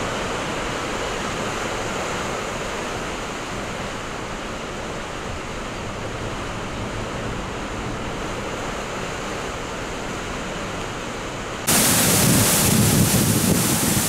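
Typhoon wind and torrential rain: a steady rushing noise. About twelve seconds in it turns abruptly louder and harsher, with the wind buffeting the microphone.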